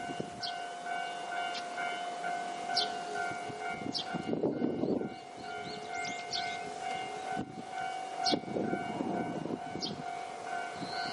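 Railway level crossing alarm ringing with an evenly repeating electronic tone, with two short bursts of low rumble as a train draws near.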